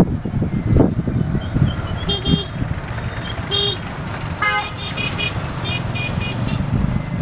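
Steady rumble of a motorbike-drawn tuk tuk riding through street traffic, with vehicle horns tooting several times from about two seconds in. A quick run of about six short beeps follows around five to six seconds in.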